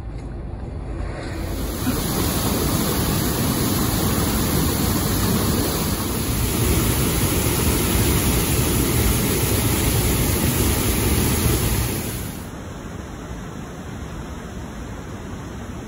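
Loud, steady roar of a waterfall pouring into whitewater, starting about a second in. Near the end it cuts off suddenly to a quieter steady outdoor hiss.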